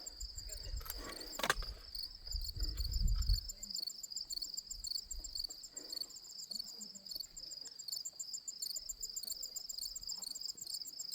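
Insects trilling steadily in a fast, evenly pulsing high chirr, with a second fainter pulsed chirr above it. A low rumble and a sharp click come in the first few seconds.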